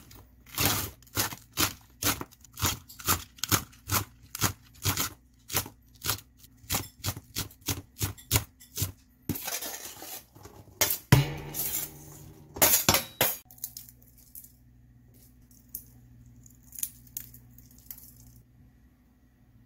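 Kitchen knife chopping green onions on a cutting board, even strokes about two a second for the first nine seconds. The chopped onions are then scraped off the board into a pan, with one loud knock about eleven seconds in, followed by only faint light ticks.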